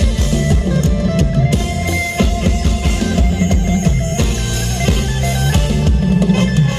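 Loud band music from a Thai rot hae parade sound truck, with a driving drum beat and heavy bass.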